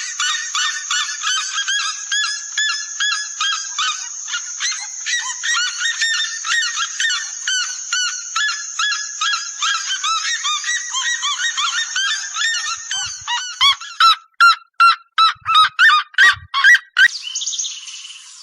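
Birds calling: a dense stream of quick, repeated chirping notes from several birds. Near the end it gives way to a run of about nine loud, separate calls, two or three a second, which then stop.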